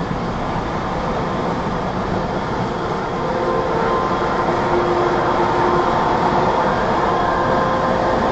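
Steady road and engine noise heard from inside a truck. From about three and a half seconds in, a held multi-tone air horn, the fire truck answering the arm-pump signal, joins and gets a little louder.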